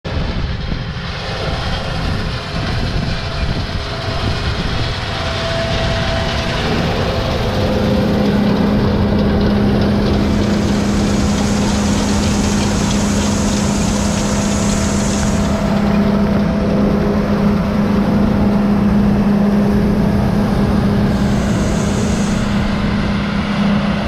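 Heavy farm harvest machinery running steadily, with a loud mechanical din. A strong steady hum joins about 7 seconds in and holds on.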